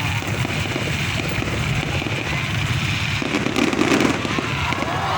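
Fireworks going off as a dense, rapid run of crackling pops, with a louder burst a little past the middle.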